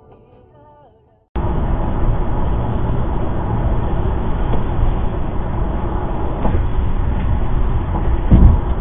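Steady road, tyre and engine noise of a car driving at highway speed, picked up by a dashcam inside the cabin. A low thump about eight seconds in is the loudest moment.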